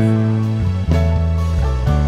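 1984 Fender Jazz Bass Special PJ-535 electric bass playing a line of low sustained notes, the pitch changing about every half second.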